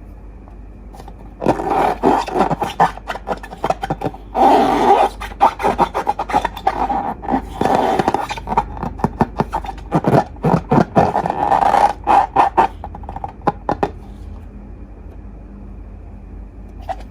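Slime being squeezed and worked by hand, giving dense wet crackling and clicking in bursts. It starts about a second and a half in, pauses briefly twice, eases off near the end, then starts again.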